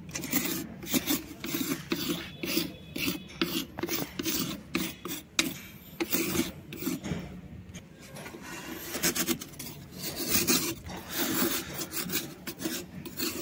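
A flat steel blade scraped over and over across a soft white shale slab, shaving off powdery curls of stone. Each stroke is a dry, gritty rasp, about two strokes a second with a couple of brief pauses.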